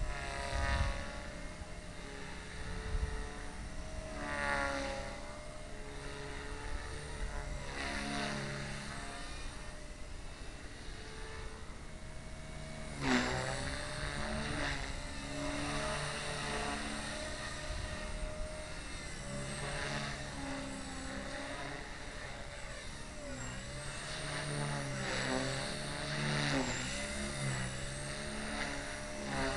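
Align T-Rex 250 electric RC helicopter in flight: its motor and rotor whine rises and falls in pitch as it manoeuvres, swelling every few seconds as the blades load up, loudest about halfway through.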